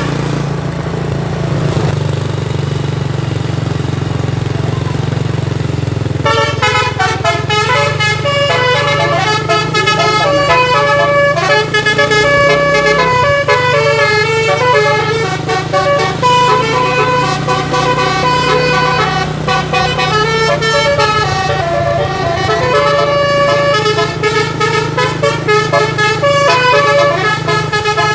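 Bus 'telolet' musical air horn playing a fast melody of changing notes, starting about six seconds in, over a steady low hum of the bus.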